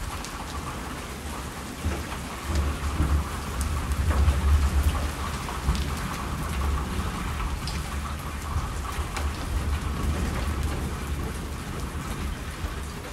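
Steady rainfall with a long, low roll of thunder that swells about four seconds in and then slowly fades.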